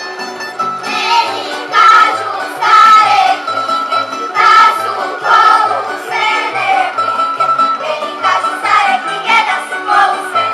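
Children's voices singing a folk song together, joining in about a second in, over plucked-string accompaniment and a double bass playing a steady repeating bass line.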